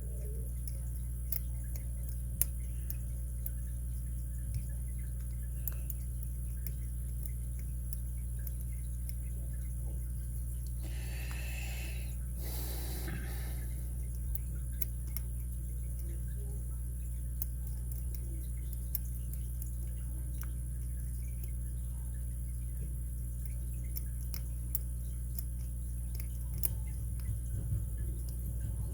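Faint, scattered clicks and scrapes of a lock pick working the serrated pins of a Master 930/950 padlock's six-pin core under tension, over a steady low electrical hum. A brief rustle comes near the middle.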